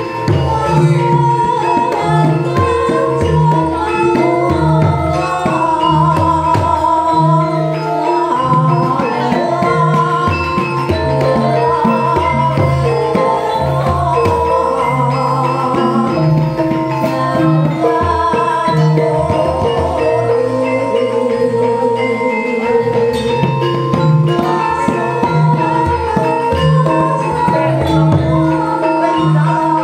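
Javanese gamelan ensemble playing a gending in pelog barang tuning: bronze metallophones and gong-chimes with hanging gongs, kendang hand drums keeping the beat, and female voices singing with the instruments.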